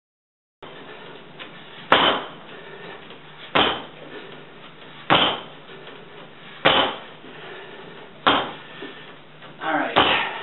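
A wet bread dough slapped down hard onto a kitchen counter six times, about once every second and a half, as it is kneaded by lifting and slamming it.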